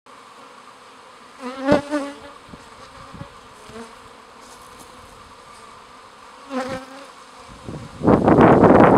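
Honeybees buzzing around the hive entrances, with two bees flying close past the microphone, about two seconds in and again near seven seconds, each a brief louder rising-and-falling buzz. A loud rushing noise on the microphone takes over in the last second.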